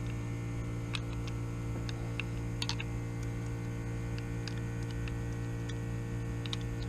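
Steady electrical mains hum, with a few light clicks of small steel pistol parts being handled as the trigger is worked back into a Hi-Point C9 frame: one about a second in, a cluster near the middle and a couple near the end.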